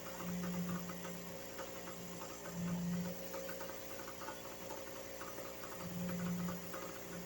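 Engine running steadily on a fishing boat, a constant mechanical drone with a low hum that swells louder three times.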